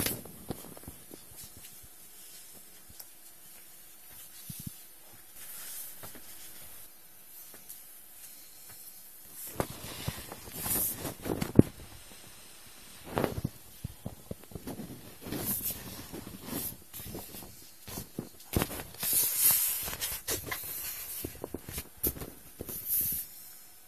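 Air hissing out of a deflating Intex Explorer 100 vinyl inflatable boat. From about ten seconds in, irregular rustling, crinkling and sharp clicks of the vinyl come in as hands press the collapsing tube down.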